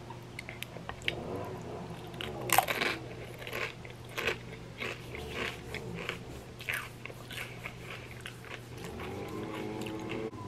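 A person biting into a barbecue chip loaded with cream-cheese dip, with one loud crunch a couple of seconds in, then chewing it in a long run of short, crisp crunches.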